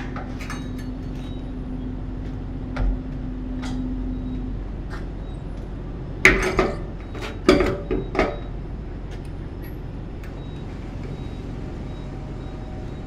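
Diesel pump nozzle knocking against a semi truck's polished fuel tank as it goes into the filler neck: several sharp metallic clanks about six to eight seconds in, with a few lighter clicks before them, over steady background noise.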